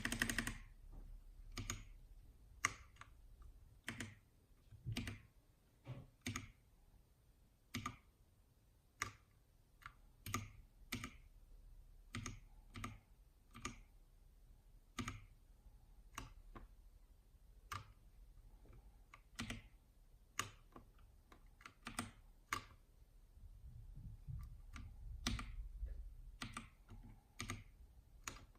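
Massdrop CTRL mechanical keyboard with Halo Clear tactile switches, keys pressed one at a time at an unhurried, irregular pace of about one keystroke a second, each giving a sharp click.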